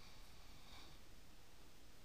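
Near silence: faint steady room-tone hiss.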